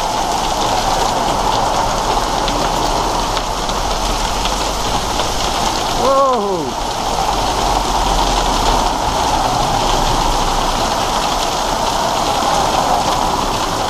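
Heavy hail and rain pelting down, heard from inside a bus shelter: a loud, steady, dense patter of countless small impacts. About six seconds in, a brief sliding pitched sound rises over it.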